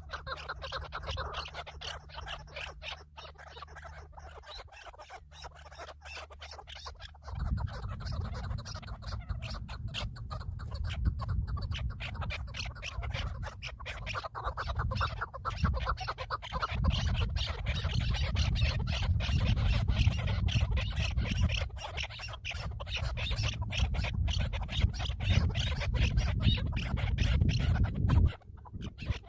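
Birds calling over continuous rustling and scratching. A steady low rumble starts suddenly about seven seconds in.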